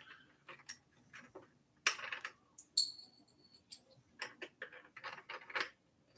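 Irregular light clicks and metallic taps from a folding e-bike's handlebar stem and quick-release clamp being worked by hand, with a short metallic ring about three seconds in.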